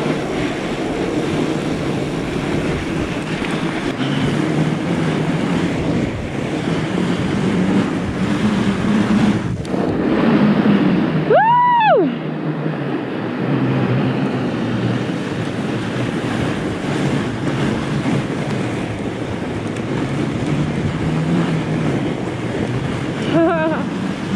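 Wind buffeting the microphone and fat-bike tyres rolling over packed snow on a downhill run, a steady rushing noise. A little past halfway a brief high tone rises and falls once.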